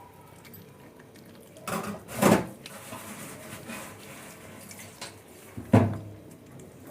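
A few sudden knocks and bumps, the loudest about two seconds in and just before the end, with fainter knocks between.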